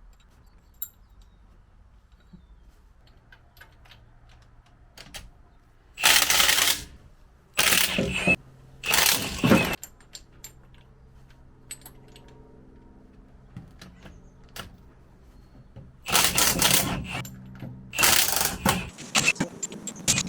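Cordless impact wrench running in five short bursts of about half a second to a second, hammering bolts loose on a V8 engine, with a few light metallic clicks of tools and bolts in the quiet stretches between.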